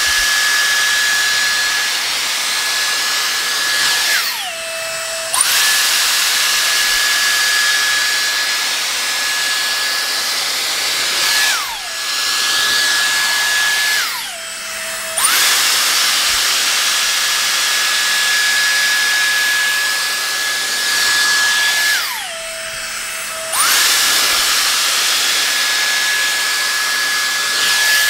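Dyson Airstrait air straightener running: its motor gives a high-pitched whine over a rush of air as it is drawn through hair. Three times the whine drops in pitch and climbs back up within a second or two as the arms are opened between passes.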